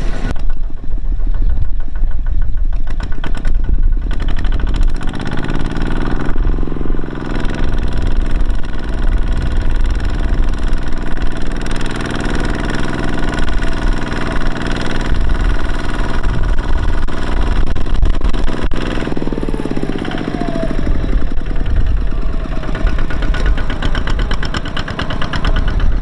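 Engine running, revving up about a quarter of the way in, held at higher speed for over ten seconds, then dropping back to a lower idle.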